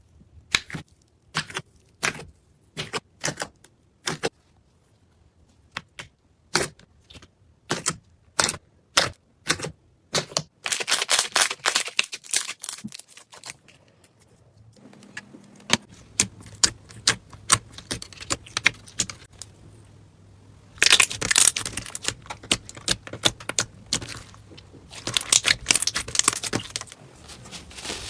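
Crunchy slime being pressed and squeezed, giving sharp crackles and pops. It starts as separate clicks spaced about half a second apart, then breaks into dense crackling several times.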